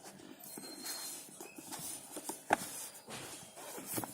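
Cardboard retail box being slid open out of its sleeve by hand: a rustling scrape of packaging with a few light clicks and taps, the sharpest about two and a half seconds in.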